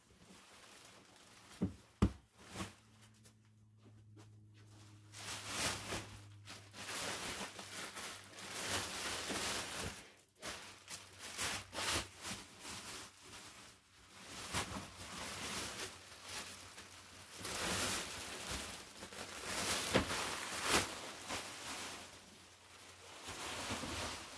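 Rustling and scuffing as a foam mattress and its loose plastic wrapping are handled and pulled into place on a bed frame, coming in uneven surges, with a few sharp knocks.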